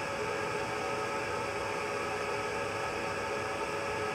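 Steady fan whir: an even hiss with several faint steady tones over it, unchanging throughout.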